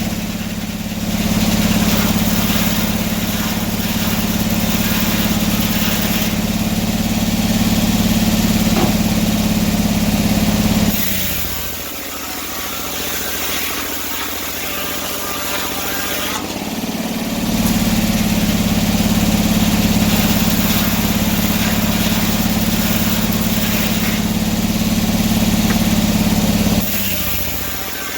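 Engine-driven antique sawmill running while sawing boards from a log: a loud steady drone that swells for two long stretches of about ten seconds each, easing off for several seconds between them.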